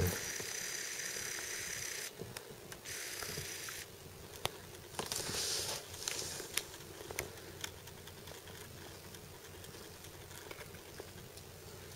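Camera handling noise: scattered light clicks and small rattles, with a faint hiss that cuts in and out during the first few seconds and a brief rush of hiss about five seconds in.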